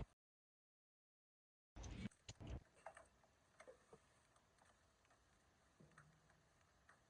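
Near silence: a cut to dead silence, then a few faint clicks and taps about two seconds in, with scattered faint ticks after.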